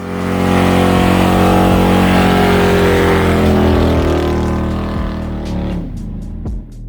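A vehicle engine running at high revs, its pitch sliding slowly down as it eases off, with a rushing hiss over it; it fades over the last couple of seconds.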